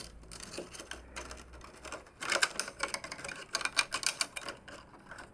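Irregular light clicks and taps of hands working on the plastic parts of a Canon MF4450 printer as it is reassembled.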